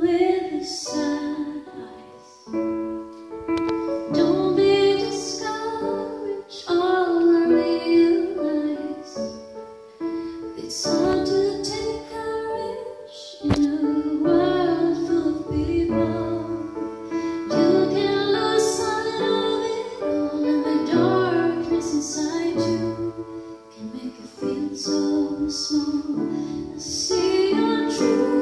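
A woman singing a ballad with piano accompaniment, amplified through a microphone.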